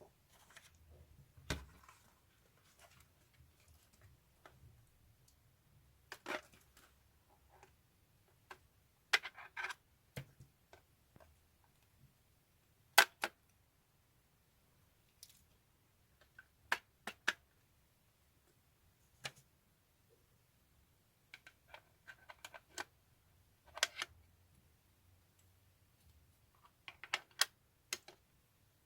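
Scattered sharp clicks and taps, some in quick pairs, with a few short rustling bursts of small objects being handled.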